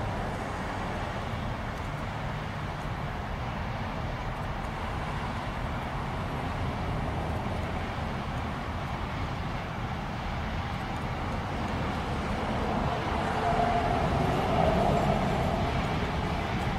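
Union Pacific Big Boy 4014, a 4-8-8-4 articulated steam locomotive, working past with a steady heavy rumble that grows a little louder about thirteen seconds in.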